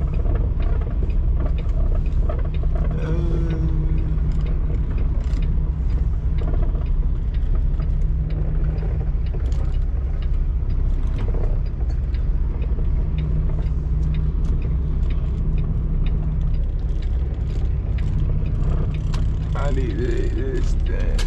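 Semi truck's diesel engine running as the rig creeps along at low speed, a steady low drone heard inside the cab, with scattered light clicks and rattles.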